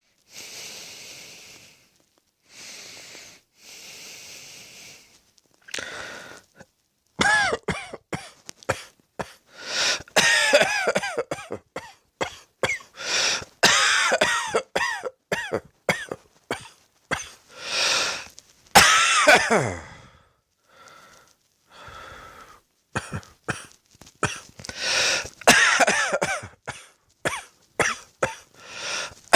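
A person coughing: a few soft breaths, then from about seven seconds in, repeated hard coughing fits. Many of the coughs carry a strained, pitched vocal edge that slides downward.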